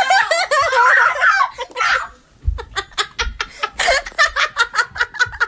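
People laughing: a high, wavering shriek of laughter, then a run of quick, short laughing bursts from about halfway in.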